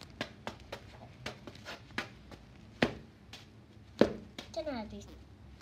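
A small plastic digging tool tapping and scraping at a crumbly block on a concrete floor: a run of sharp clicks and knocks, with two louder knocks about three and four seconds in.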